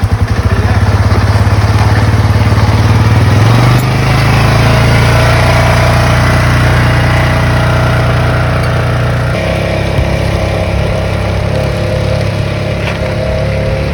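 Polaris RZR 570 side-by-side's single-cylinder engine running on a test ride after a fuel-pump wiring repair. It pulses unevenly at first, steps up in pitch about three and a half seconds in and holds steady, then changes again around nine seconds in.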